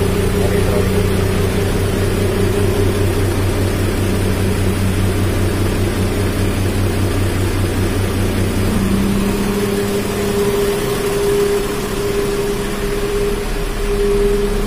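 Diesel engine of a Nissan Diesel car lifter truck running steadily. About nine seconds in its deep hum thins out and a higher tone comes up.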